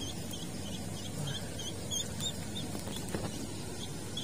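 Duckling on the fishing line as live bait, peeping: short high chirps, about three a second, over a faint steady low hum.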